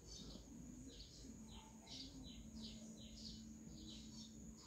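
Faint small birds chirping in the background: a run of short, high chirps, each sliding downward, about two a second. A steady high whine runs under them, and a low hum comes in about a second in.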